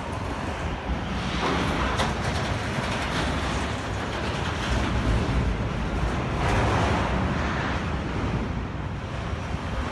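Strong storm wind buffeting the microphone: a steady low rumble and hiss that swells in gusts about a second and a half in and again past six seconds.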